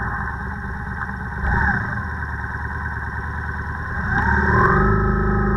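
A vehicle engine idling, then revving up with a rising whine about four seconds in and getting louder as it pulls away.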